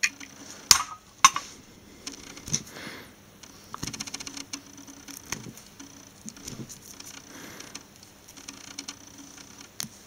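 Small scratching and clicking of a tool scraping thin leftover inner insulation off the stranded copper conductors of a 12-gauge speaker cable, with fingers handling the wire. Two sharper clicks come about a second in, and a quick flurry of fine scratches around four seconds.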